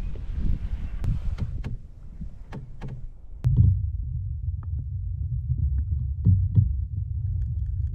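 Lake water splashing and dripping with a few sharp clicks as hands and a trout go into the water. About three and a half seconds in, the sound turns suddenly to a dull, muffled low rumble with faint clicks, heard with the microphone underwater.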